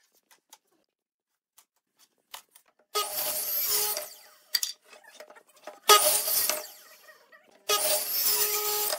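Electric miter saw cutting wooden boards: three bursts of motor whine and blade noise, the first about three seconds in, a shorter one about six seconds in that starts sharply, and a third near the end. A few faint clicks come before the first cut.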